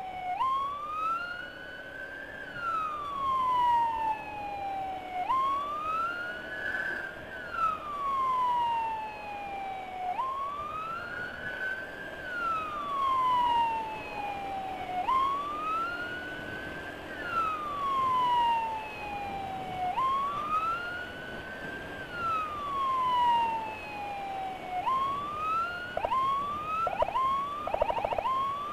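Emergency siren in a slow wail, rising over about two seconds and falling over about three, repeating roughly every five seconds. Near the end a few quick short chirps break in.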